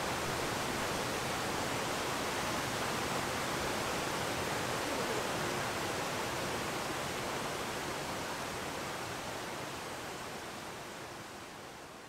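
Steady rush of river water, an even hiss with no single events in it, fading out over the last few seconds.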